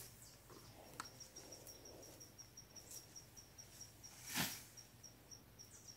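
Faint, steady chirping of an insect: a high-pitched pulse repeating about five times a second. A single brief whoosh, like a rustle or a gust on the microphone, comes about four seconds in.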